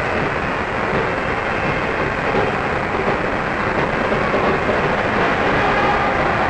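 Large convention-hall crowd cheering as one steady, dense din.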